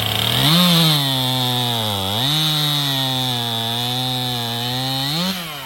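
Two-stroke chainsaw revved to full throttle and cutting through a log. The engine pitch dips about two seconds in as the bar bites, holds steady under load, then climbs briefly near the end as the chain breaks through and the throttle is released.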